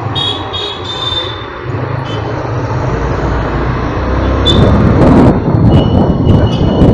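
Road noise from a motor scooter riding through town traffic: a steady low rumble of engine and wind. It grows louder about halfway through, with a few sharp clicks and a thin high tone near the end.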